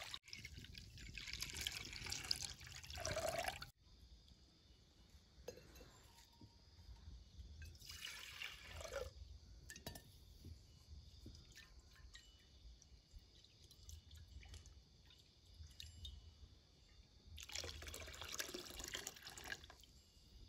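Milk poured from a steel pot into an aluminium kadhai: three pours, one over the first few seconds, one about eight seconds in, and one near the end, each a splashing stream of liquid.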